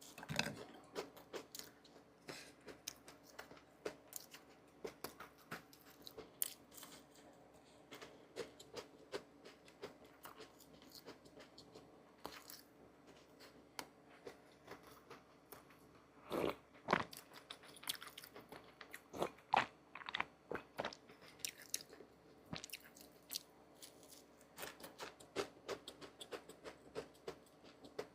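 Irregular small crunches and clicks of food being broken or handled, with a louder run of crunches a little past the middle.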